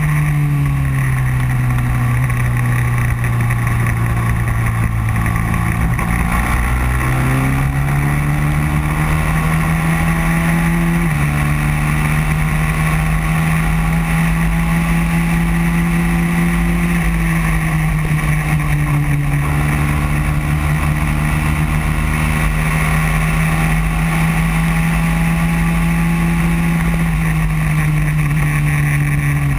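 Racing go-kart engine running at race pace, heard from the kart itself: its pitch sits low, climbs, steps up suddenly about eleven seconds in and holds high for a long stretch, dips briefly, rises again and falls near the end. A steady rush of wind noise runs underneath.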